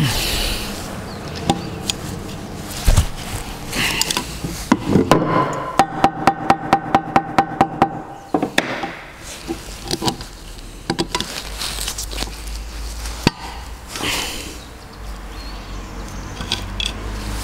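Hand tools working on a bare cylinder head to free a snapped camshaft-bearing-cap bolt: scattered metallic clicks and knocks, with a quick run of about a dozen evenly spaced ringing clicks, about five a second, a third of the way in.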